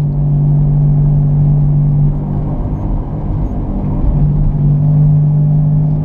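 Growl of a worn right front wheel bearing on a 2001 Hyundai Accent, heard inside the cabin while driving, over the engine and tyre noise: a steady low drone that fades for about two seconds in the middle and then comes back. The growl is the sign of a bad wheel bearing.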